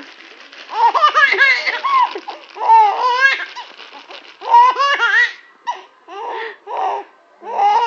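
Baby girl laughing loudly in repeated bursts of belly laughter, a series of laughs with short pauses between them.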